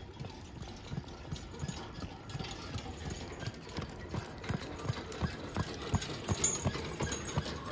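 Hoofbeats of a Friesian horse trotting on a paved road in a steady clip-clop rhythm, growing louder over the last few seconds as it passes close by.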